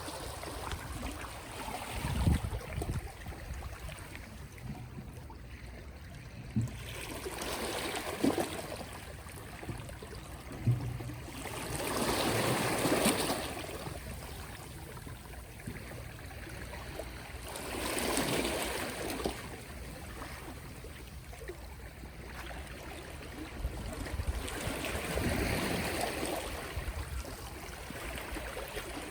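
Small, gentle sea waves washing onto the shore. The surf swells up and falls back about every five to six seconds over a low, steady rumble.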